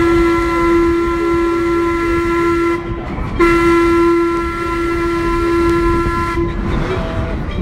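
A steam whistle blowing two long blasts on one steady pitch, with a short break about three seconds in; the second blast cuts off about a second before the end.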